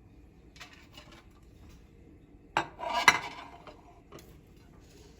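Dishes and cutlery clinking and clattering in a kitchen. Light clicks come first, then a sharp knock about two and a half seconds in, followed by about a second of rattling clatter, then a couple of small clicks.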